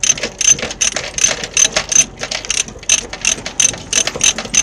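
Ratchet chain binder being cranked on a tie-down chain, its pawl clicking sharply about three times a second.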